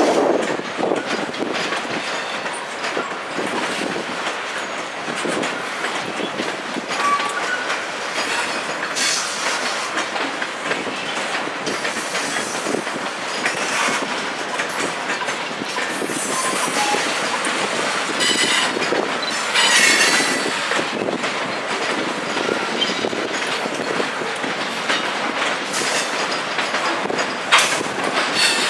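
Freight train of covered hopper cars rolling past, steel wheels clacking over the rail joints, with several brief high-pitched wheel squeals, the strongest about twenty seconds in.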